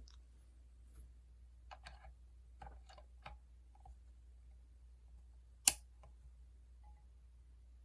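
Light clicks and taps from something small being handled, with one sharp, much louder click about five and a half seconds in, over a faint low hum.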